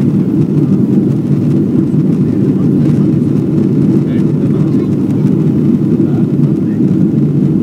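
Steady cabin noise of a Boeing 777-300ER climbing after takeoff: the drone of its GE90 engines and rushing airflow heard from inside the cabin, loud and low-pitched without a break.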